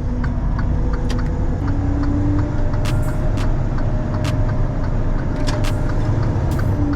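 Semi-truck's diesel engine running with a heavy low rumble, its engine note stepping up slightly about one and a half seconds in and holding there. Faint short clicks come and go throughout.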